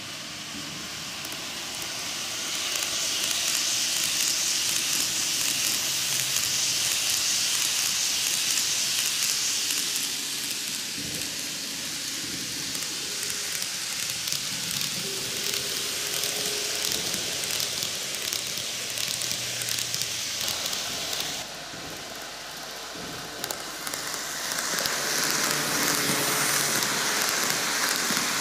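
N-gauge model train running on model track: a steady rattling hiss of metal wheels on the rails with a faint motor whine. It grows louder as the train passes close, dips briefly about three quarters of the way through, then rises again as the train comes round once more.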